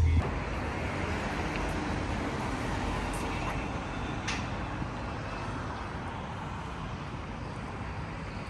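Steady rushing road noise of vehicle traffic, slowly fading.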